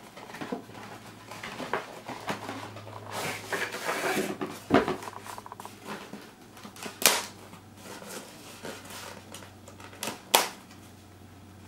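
Packaging being opened by hand: a folding knife scraping and slitting tape along a styrofoam box, with rustling and scraping and scattered sharp clicks, the loudest about seven and ten seconds in.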